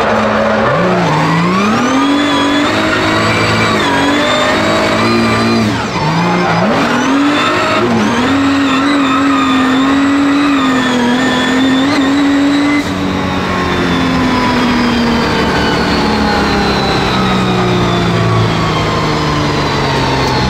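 The Nissan 200SX S13's swapped-in R35 GT-R VR38DETT twin-turbo V6, heard from inside the cabin, revving hard while drifting. Its pitch dips sharply and climbs back about a second in and again about six seconds in, holds high for several seconds, then drops in loudness and falls slowly through the rest.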